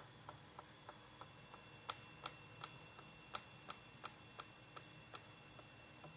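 Faint, regular clicking from a machine, about three clicks a second. From about two seconds in until about five seconds in, the clicks grow louder and sharper, with a thin high squeak held under them. It is a steady mechanical rhythm that could be mistaken for a couple having sex.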